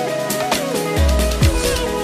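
Background electronic music with a steady beat; a deep bass comes in about a second in, with falling bass sweeps.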